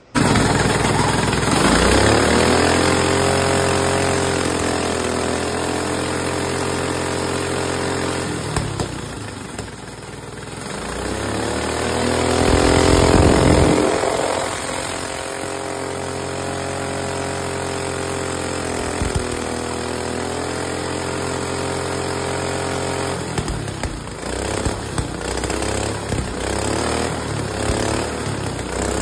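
Turbocharged Harbor Freight Predator 212cc single-cylinder engine running: it revs up twice, the second time loudest, holds a steady speed, then runs unevenly near the end. It is not yet tuned and needs a carburettor jet change.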